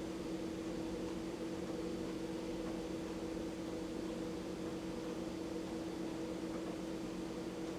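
A steady mechanical hum with a few held tones over an even hiss, unchanging throughout.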